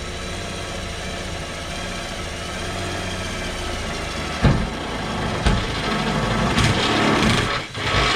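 Power drill running with a step bit, boring a pilot hole through a wall: a steady motor whine with a sharp knock about four and a half seconds in and another a second later as the bit bites, growing louder over the last few seconds.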